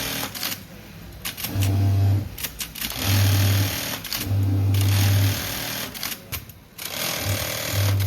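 Industrial sewing machine stitching denim in short runs, starting and stopping about four times, each run a steady hum.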